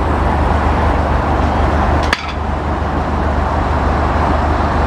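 Steady outdoor city ambience: a continuous rumble and hiss of road traffic, with one brief click about two seconds in.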